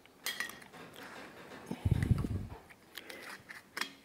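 Hand-lever sheet-metal stretcher working a bent steel strip: sharp metallic clicks and clanks as the jaws bite and release, with a heavier clunk about halfway through. The strip's flange is being stretched to curve it.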